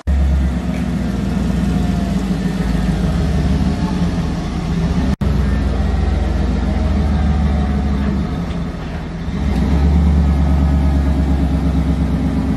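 A truck's engine running loudly with a deep, low exhaust note. It eases off briefly about two-thirds of the way through, then picks back up.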